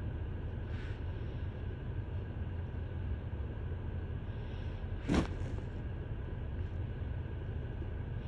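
Steady low rumble of a car heard from inside the cabin, with one sharp click about five seconds in.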